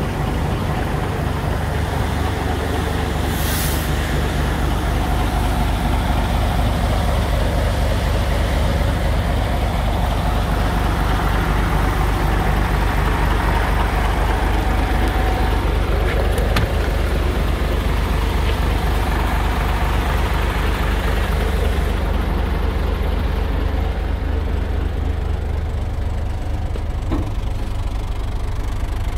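DAF 3600 ATI tractor unit's turbo diesel engine idling steadily, with a brief hiss about three and a half seconds in.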